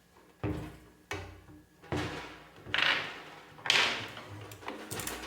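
Snare drum with a freshly fitted head, partway through tuning, struck about six times at irregular intervals, the later hits louder. The head is still slack and sounds low and boomy, not yet like a snare.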